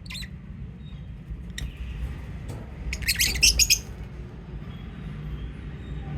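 Lovebirds calling: a brief high chirp, then about three seconds in a loud rapid burst of shrill chirps and squawks lasting under a second, over a steady low rumble.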